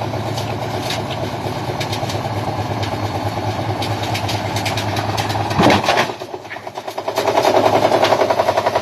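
Washing machine running hard, a loud steady mechanical drone with rapid clattering. About six seconds in comes a loud knock, then a fast pulsing rattle.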